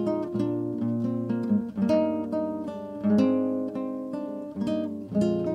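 Background acoustic guitar music: picked notes and chords, several a second, each ringing and fading.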